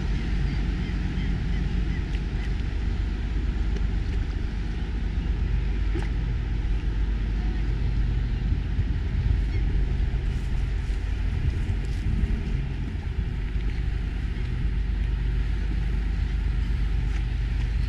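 Steady low rumble of a small boat's motor running at an even speed over calm water.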